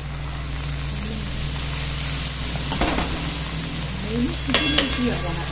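Vegetables sizzling as they are stir-fried in a large kadhai, with a slotted metal spatula stirring them and knocking against the pan twice, about three and four and a half seconds in.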